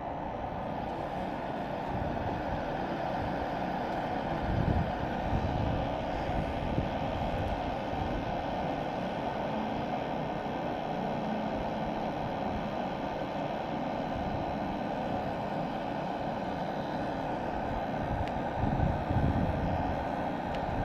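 Furnace running with its burner firing: a steady, even whooshing drone, with two brief low rumbles about five seconds in and near the end.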